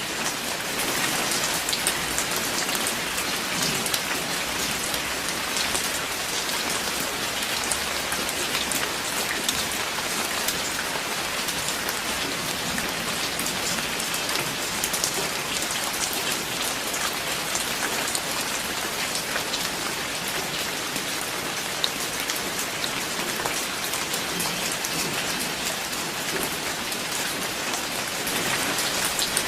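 Steady rain falling, an even hiss dotted with many distinct drop ticks.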